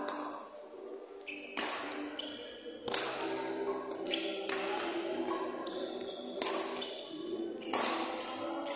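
Badminton rackets striking a shuttlecock back and forth in a rally: about six sharp hits, roughly one every second and a half, each ringing on in the echoing hall.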